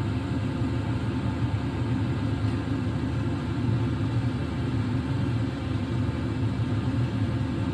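Diesel air heater running with a steady low rumble.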